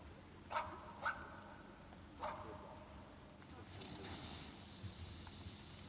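A dog barks three times, short sharp barks about half a second, a second and two seconds in. Then, from about three and a half seconds in, a firework sets up a steady high crackling hiss that carries on.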